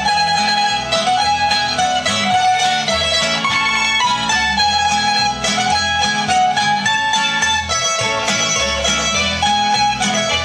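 Croatian folk dance music played on plucked string instruments: a melody moving note to note over a steady, rhythmic bass line.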